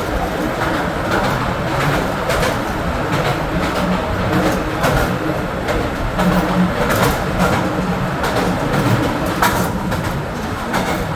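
Mine train running on rails into the mountain: a steady rumble of wheels and cars with irregular clacks and knocks.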